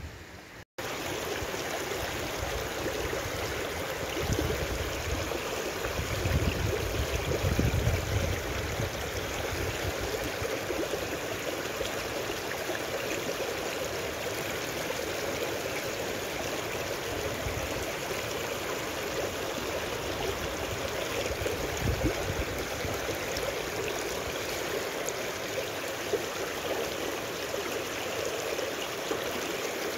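Shallow rocky stream rushing and splashing over stones close by, a steady full rush of water, with a few low rumbles swelling under it a few seconds in.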